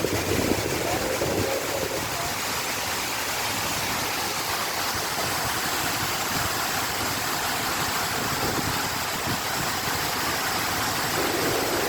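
Large waterfall close by: a steady, even rush of falling water and spray.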